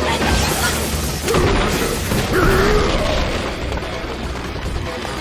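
Anime action soundtrack: booms and crashes over music, with a voice or cry among them.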